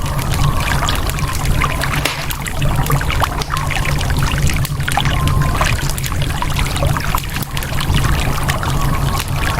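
Layered nature-sound ambience: a fire crackling with many small sharp pops, over running water and a steady low rumble.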